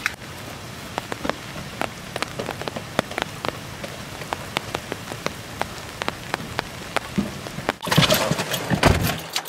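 Steady rain hissing with scattered sharp drop ticks. Near the end a louder burst of rustling and thumps as someone climbs into a car.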